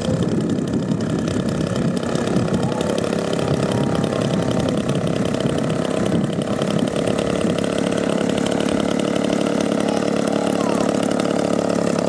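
Engine of a giant-scale radio-controlled aerobatic plane idling steadily on the ground, its propeller turning while the plane is held by the tail.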